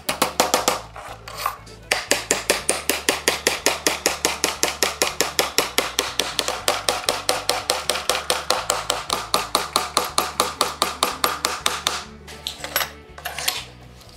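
Claw hammer striking nails into an old wooden wagon tailgate in rapid light blows, about six a second. There is a short pause about a second in, and the blows thin out to a few scattered strikes near the end.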